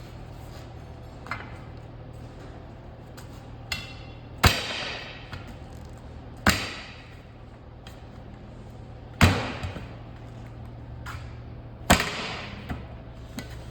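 Hammer blows: four loud strikes two to three seconds apart, each ringing briefly, with a few lighter knocks between them.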